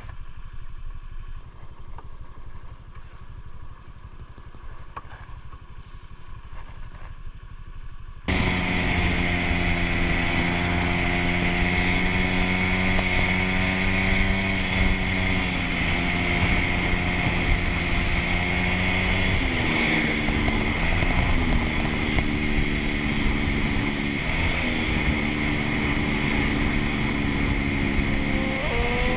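Honda motor scooter's single-cylinder engine running at cruising speed, with wind and road noise, its pitch dipping and recovering twice as the throttle eases and opens. It starts suddenly about eight seconds in, after a stretch of much quieter sound.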